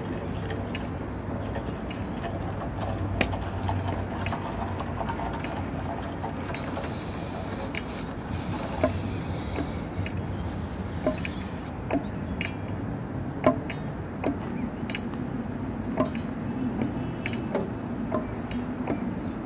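Performers striking and handling found objects in an improvised noise piece: scattered, irregular sharp clinks and taps over a steady low background noise.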